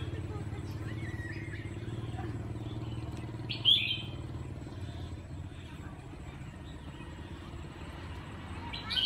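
A steady low engine rumble runs throughout, with a short, loud, high chirp about three and a half seconds in and a fainter one near the end.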